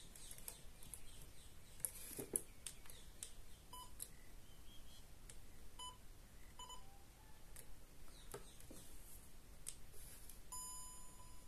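Electronic beeps from a small gadget: three short beeps a couple of seconds apart, then one longer steady beep of about a second near the end. Faint clicks and rustles of handling come in between.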